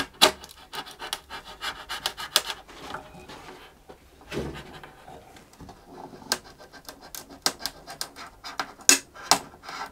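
A thin steel knife worked into the glued seam between a cello's back and rib: irregular clicks, small cracks and scrapes as the blade pries at the old glue joint. The joint resists and does not open easily.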